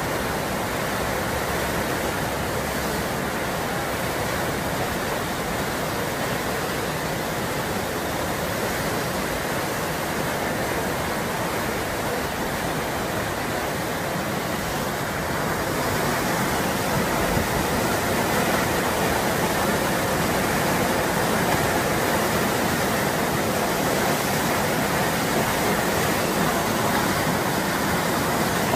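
Whitewater rushing through the Eisbach's standing river wave, a steady loud rush of water that grows a little louder about halfway through.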